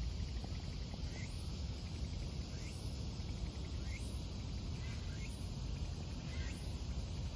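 A domestic cat purring close up, a steady low rumble. A faint short rising chirp repeats about once a second over it.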